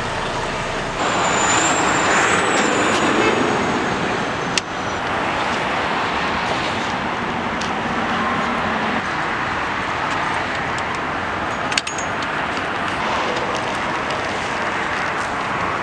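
Steady road-traffic noise, broken by two sharp clicks, one about four and a half seconds in and one about twelve seconds in, with a faint high whine in the first few seconds.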